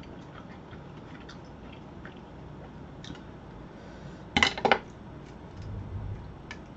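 Light clicks of chopsticks and shells against ceramic bowls as mussels are picked out of a seafood soup. About four and a half seconds in comes a short clatter of several sharp clicks as a mussel shell lands on a ceramic plate.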